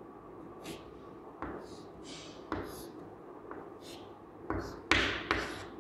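Chalk writing on a chalkboard: a series of short taps and scrapes as strokes are drawn, coming louder toward the end.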